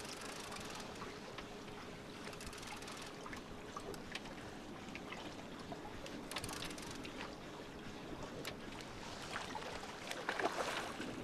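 Water lapping against a small boat's hull, with the faint steady hum of its outboard motor and a few small clicks.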